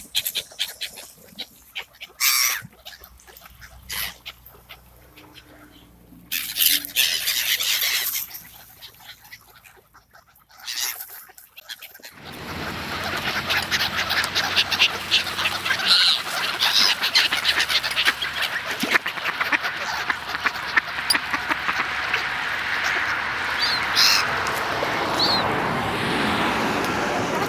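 A flock of wintering waterfowl calling and squabbling. It becomes a dense, continuous clamour from about twelve seconds in, after scattered bursts of noise.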